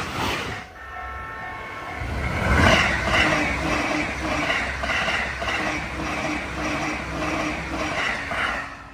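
Train at a Japanese level crossing: a train horn sounds for about a second, starting about a second in. Then the crossing's warning alarm rings in an even rhythm about twice a second over the running noise of the train.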